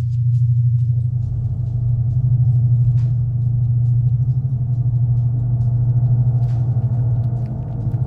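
Loud low drone that throbs steadily. About a second in, a layer of higher sustained tones swells in over it, and a few faint ticks come and go.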